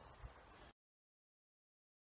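Near silence: a faint trace of outdoor wind and ride noise that cuts off abruptly under a second in, followed by total silence.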